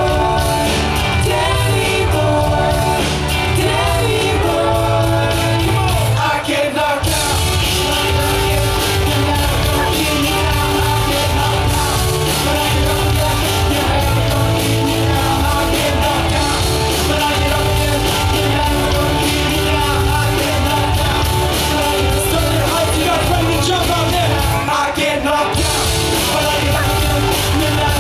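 Live party band playing rock music with a singer, bass and drums driving a steady beat; the band drops out briefly twice, about a quarter of the way in and near the end.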